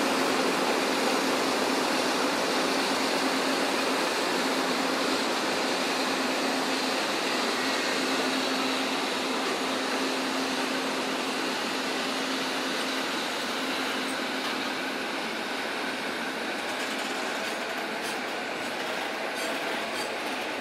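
Container freight train rolling past, a steady rumble of wheels on rail with a low steady hum, slowly growing quieter; the hum fades about two-thirds of the way through, and a few sharp clicks come near the end.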